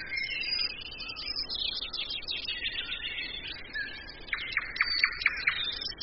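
Several songbirds chirping and singing at once. A little past four seconds in, one bird gives a quick run of about six evenly spaced sharp notes, the loudest sound here.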